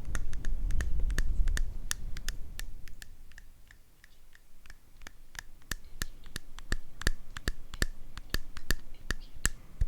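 Close-miked ASMR clicking: a run of short, sharp clicks, irregular and a few a second, over a low rubbing or scratching noise that fades out in the first two to three seconds.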